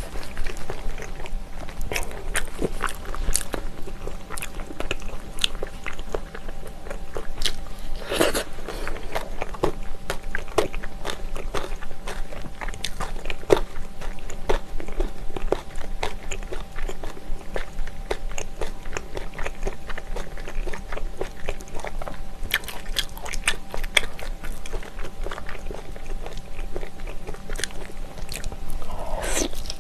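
Close-up biting and chewing of braised ox knee, the soft gelatinous beef knee cartilage and tendon, with many small irregular mouth clicks.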